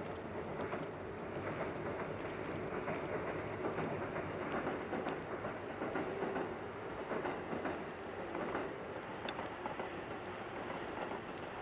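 Steady rain hiss, with a distant four-car KiHa E130 diesel railcar train running past, a little louder in the middle.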